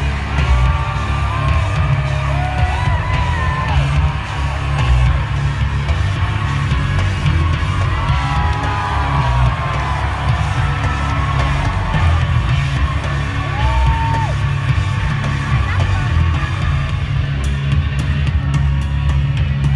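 Wrestler's entrance theme played loud over an arena PA, with heavy bass, while the crowd yells and cheers over it.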